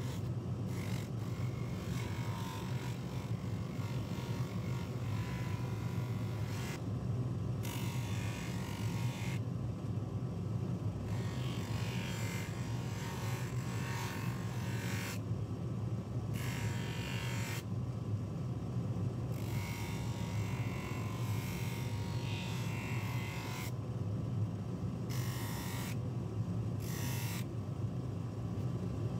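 Bench polishing motor running steadily with a buffing wheel, while a silver pocket-watch case is pressed against the wheel in repeated passes, giving a rubbing sound that comes and goes on top of the motor's hum.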